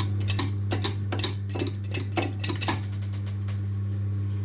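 Light metallic clicks and taps from hand work on a seized boiler fan, coming thick for about the first three seconds and then stopping, over a steady low hum.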